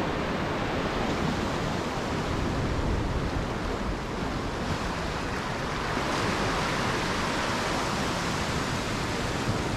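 Sea surf washing over a flat rock shelf: a steady rush of foaming, breaking water.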